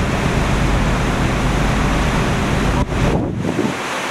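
Steady rushing of wind and sea heard from a moving ferry's deck, with a heavy low rumble that eases about three and a half seconds in.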